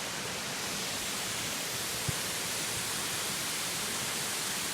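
Small forest waterfall rushing steadily, a constant even roar of falling water.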